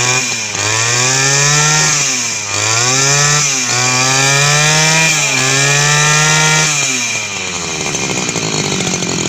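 Yamakoyo two-stroke brush cutter engine being throttled up hard several times in a row, its pitch climbing with each blip and dipping briefly between them. About seven seconds in it drops back to a steady idle.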